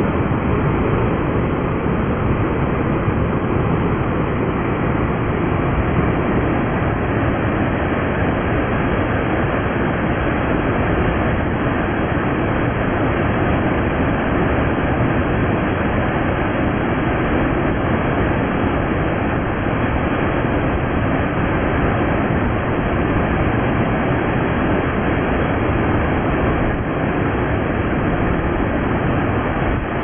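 Waterfall: a deep, steady rush of falling water churning into the gorge and plunge pool below.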